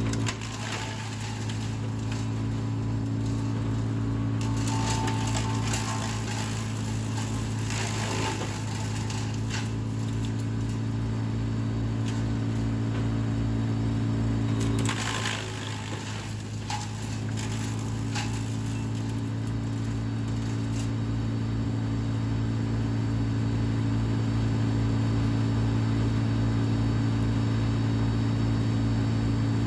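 Vermeer BC700XL wood chipper running at full throttle with a steady engine hum, and rough crackling bursts as branches are fed through the cutter, about four to nine seconds in and again around the middle, where the engine note briefly dips under the load.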